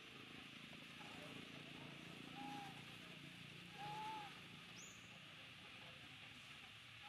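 Faint outdoor ambience: a steady high insect hum, with two short arched calls about two and a half and four seconds in and one brief high chirp near five seconds.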